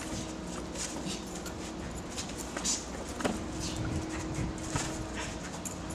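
Scuffling of two people play-fighting: short scrapes and steps of shoes on pavement and swishes of clothing, scattered irregularly, over a steady low electrical hum.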